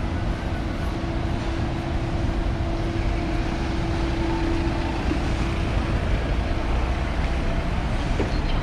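Busy city street traffic: a steady rumble of passing vehicles, with a steady hum held through the first six seconds or so.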